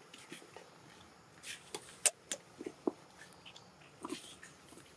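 Young macaques giving a few short, soft calls among scattered sharp clicks and rustles. The loudest sound is a single sharp click about two seconds in.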